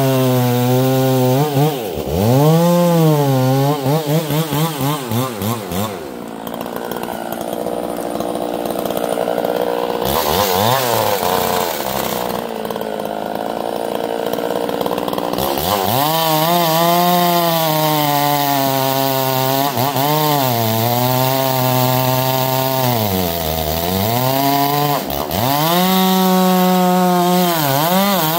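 Two-stroke chainsaw cutting decaying black walnut wood, its engine revving up and down over and over. It gives several quick blips about four to six seconds in, then runs rougher and less clearly pitched under load through the middle before revving freely again.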